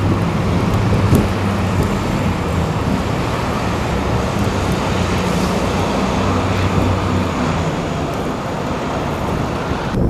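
Steady street traffic noise: a low engine hum under a constant hiss, with some wind.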